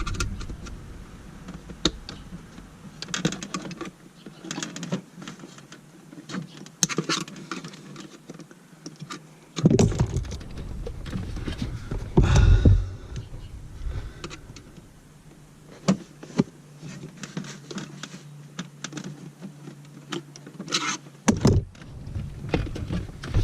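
Plastic wiring-harness connectors being pried and worked loose from a car's body control module: scattered small clicks, rattles and plastic handling noises, with louder knocks about ten and twelve seconds in.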